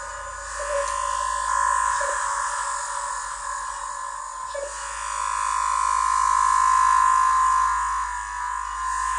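Eurorack modular synthesizer sounding a steady, nasal drone with hiss above it and a few short blips. It is being tweaked by hand and swells louder in the second half.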